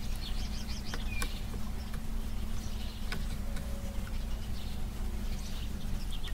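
Outdoor background: a steady low hum with faint bird chirps over it, and a few light clicks as the plastic helmet visor is handled.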